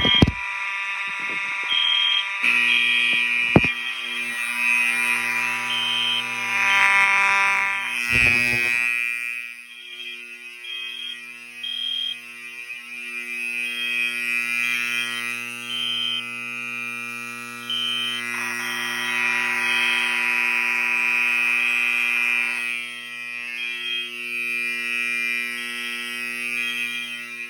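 Several fire alarm horns sounding at once. Steady overlapping tones run under a higher short beep that repeats about once a second. A few sharp knocks come in the first nine seconds.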